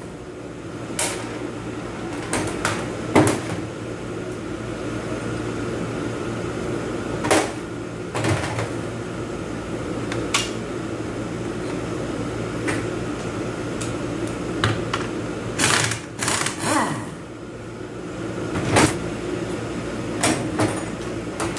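Scattered sharp clicks and knocks of hand tools and bolts being handled on an automatic transmission under teardown, with a cluster of short bursts about three-quarters of the way through. A steady background hum runs underneath.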